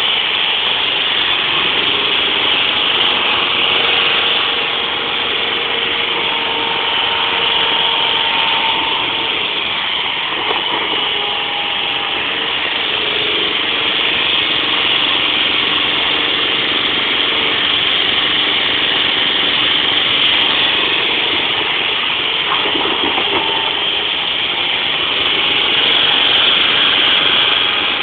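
Princeton truck-mounted forklift running as it drives and carries a pallet, a steady mechanical din with a faint whining tone that shifts in pitch now and then.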